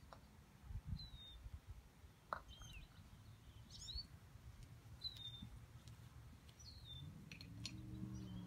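Faint songbird chirps outdoors: about six short, quick chirps spread over several seconds. A low steady hum comes in near the end.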